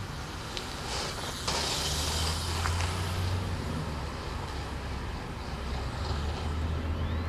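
Street traffic: a steady low engine rumble with road hiss, getting louder about a second and a half in.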